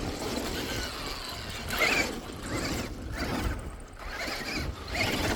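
Axial SCX6 Honcho RC crawler's electric motor and gearbox whining as it drives, the pitch rising and falling with the throttle, loudest about two seconds in.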